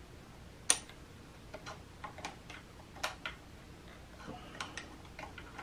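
Irregular light metallic clicks and taps of a small wrench working the brake hose fitting on a Magura MT5 brake lever as it is tightened, the sharpest click about a second in.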